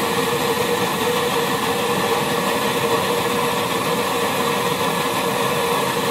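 Petrol pressure burner of an NVA Kleinküche field kitchen running, a steady rushing noise with an even tone held in it.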